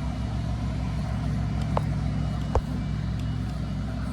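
Tractor engine running steadily under load as it pulls on the rope to tip the tree, with two sharp knocks a little under a second apart near the middle.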